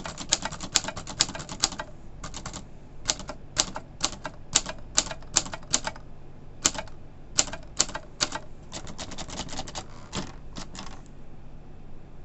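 Underwood 18 manual typewriter being typed on: keys striking in quick irregular runs of clicks with short pauses between, stopping about eleven seconds in.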